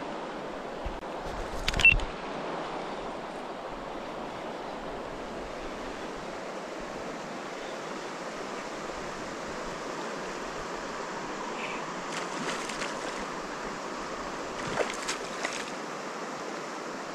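Steady rush of flowing river water, with a sharp knock about two seconds in and a few fainter clicks near the end.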